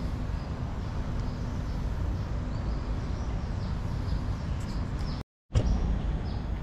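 Outdoor park ambience: a steady low rumble with birds chirping in short, high, falling notes again and again. The sound drops out for a moment near the end.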